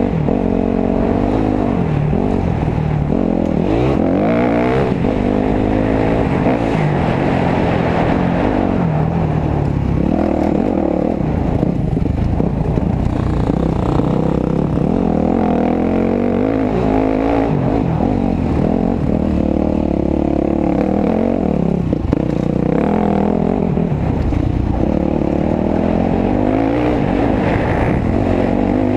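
Dirt bike engine revving up and down repeatedly while riding a trail, its pitch rising and falling with the throttle.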